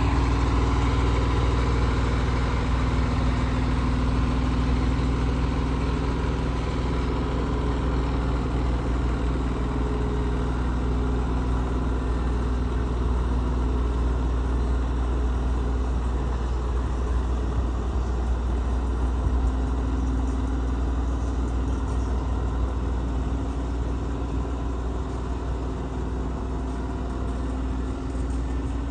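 Sutphen SL100 aerial ladder fire truck's diesel engine idling steadily, with a low hum and a steady drone that grows slightly fainter near the end.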